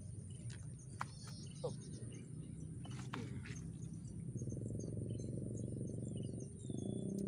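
Outdoor ambience: a steady high-pitched insect drone with faint scattered bird chirps over a low rumble that grows louder in the second half, and a couple of faint clicks.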